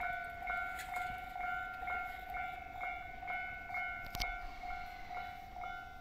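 Japanese railway level-crossing warning alarm clanging steadily at about two strikes a second, a sign that a train is approaching and the barriers are down. A sharp click about four seconds in.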